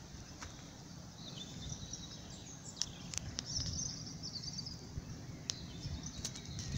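Outdoor ambience: a small bird chirps in quick high trills for about a second midway, over a steady low rumble, with a few sharp ticks scattered through.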